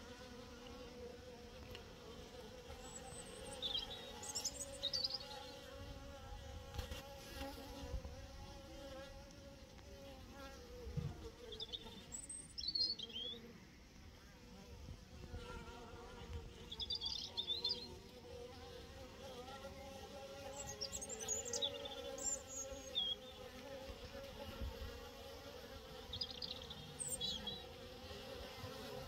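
Honeybees buzzing at a hive entrance: a steady hum of many bees flying in and out of the hive.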